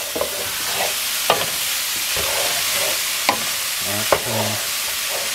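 Ground beef and cocktail wieners sizzling in a skillet while a wooden spatula stirs them, with a steady hiss and three sharp knocks of the spatula against the pan.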